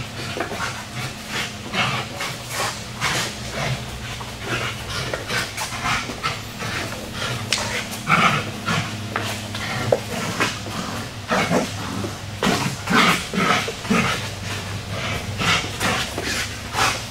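A dog panting hard in quick, irregular huffs while it tugs on a toy, over a steady low hum.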